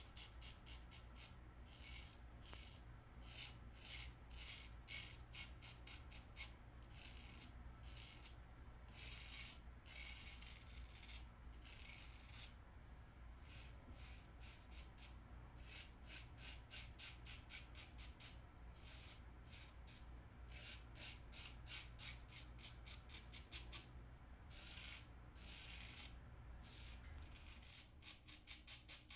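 Safety razor scraping through lathered stubble in short, repeated strokes, a few a second, on a pass against the grain.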